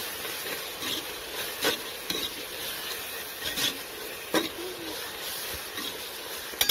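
Onions, ginger-garlic paste and green chillies sizzling in oil in a pressure cooker, while a steel ladle stirs and scrapes through them with about half a dozen sharp clinks against the pot.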